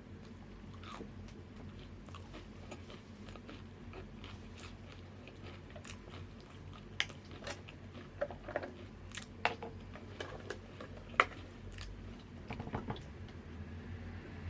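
Close-miked crunchy chips being bitten and chewed: a run of soft crackles, then sharper, louder crunches from about halfway through, the loudest near the end.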